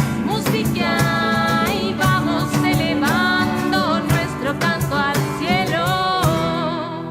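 Folk band playing live: a singer holding long, wavering notes with vibrato over a steady run of percussion strokes.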